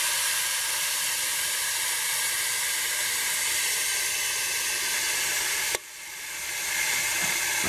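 Water hissing steadily through a metal livestock trough float valve fed by a garden hose as it refills the drinker bucket, much like a toilet tank filling. The hiss drops out abruptly for a moment about six seconds in, then comes back.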